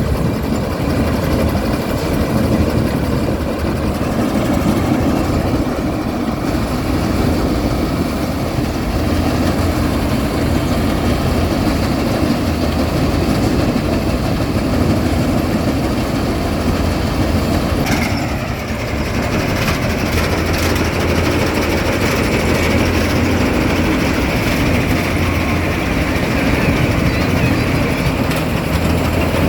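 John Deere rice harvester running steadily, its engine and machinery making a continuous loud mechanical noise. About 18 seconds in, the sound dips briefly with a whine falling in pitch, then settles back to a steady run.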